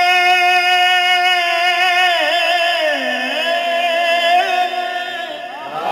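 Male voices singing a devotional qaseeda line: one long held note that turns into wavering, gliding ornaments about two seconds in, with a second, lower male voice joining about three seconds in.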